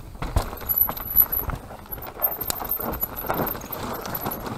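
Mountain bike rolling fast down a rocky dirt trail: the tyres crunch over loose stones while the chain and frame rattle, with many irregular knocks as the wheels hit rocks.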